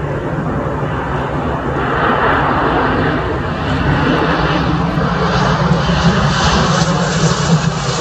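Jet engines of a Boeing 737-800 airliner on final approach, growing louder as it comes in low and close overhead. A high engine whine rises over the steady rumble in the second half.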